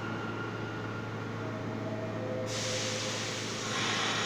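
R46 subway train at the platform, giving a steady low hum. About two and a half seconds in, a sudden hiss of air starts and grows louder near the end.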